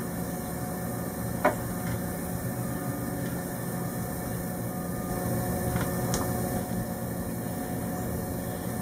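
Steady low hum, with one sharp click about a second and a half in and a couple of faint ticks later, as the battery-switch wiring harness is handled and tied down.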